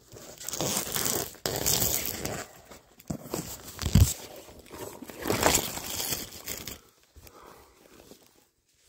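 Plastic shrink-wrap being torn and crumpled off a cardboard box, with a dull thump about four seconds in; the crinkling stops and it goes quiet for the last two seconds.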